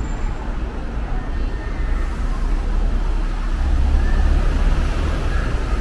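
Steady background rumble of distant road traffic, heavier for a second or so about three and a half seconds in.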